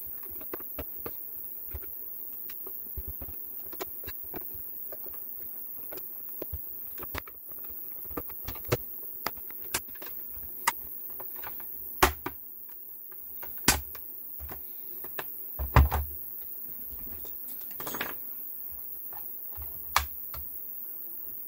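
Plastic battery pack case of a Ninebot Segway Mini clicking and snapping as its clips are pried apart with pry tools. Light scattered clicks come first, then several louder snaps in the second half.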